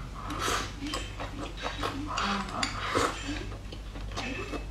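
Eating clams with chopsticks: repeated small clicks and clinks of chopsticks against clam shells and a glass rice bowl, mixed with chewing and mouth noises.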